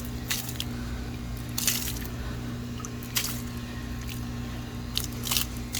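Wet leaves and acorns being pulled out by hand, in several short squishy rustles, over a steady low hum.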